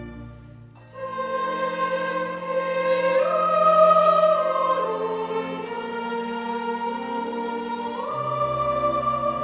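Slow classical-style background music: long held sung notes over strings, stepping from pitch to pitch, with a new phrase entering about a second in.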